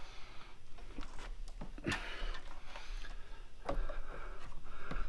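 Scattered light clicks and knocks of metal and plastic parts being handled and fitted around the radiator, over a steady low hum.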